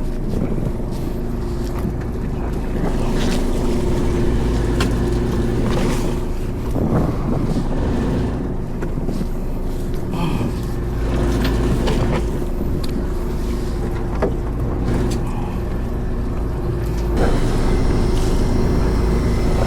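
Fishing boat's engine running steadily with a low hum, under wind noise, with scattered small knocks and clicks; the wind noise grows louder near the end.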